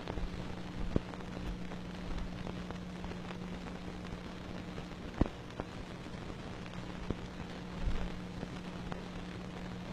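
Surface noise of an old film soundtrack: steady hiss and crackle over a low hum, with scattered clicks and pops, the loudest about five seconds in.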